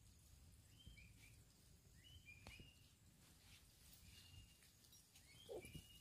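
Faint, short high-pitched animal calls, coming in small clusters every second or so, with a brief lower call near the end that is the loudest moment.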